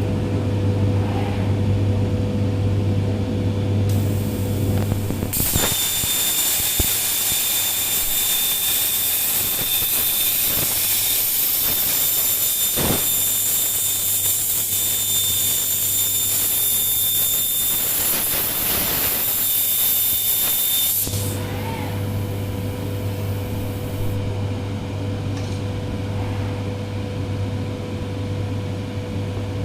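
Steady electrical machine hum. About five seconds in, a CNC plasma cutter's arc starts and cuts with a loud, high-pitched hissing whine for about fifteen seconds, then cuts off suddenly, leaving the hum.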